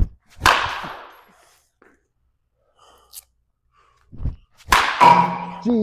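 Batting practice in an indoor cage: a thump and a breathy rush near the start, then a low thump and the sharp crack of an aluminium bat hitting a baseball about five seconds in, with a ringing decay. A man's voice starts right at the end.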